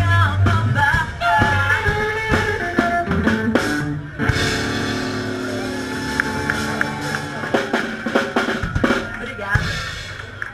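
Live rock and roll band playing: a woman singing with upright double bass, drums and guitar. The music gets quieter near the end.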